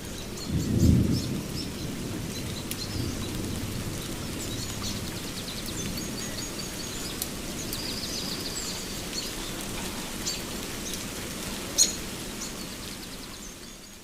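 Steady rain with a low rumble of thunder about a second in, and birds chirping in short high calls throughout; the sound fades out near the end.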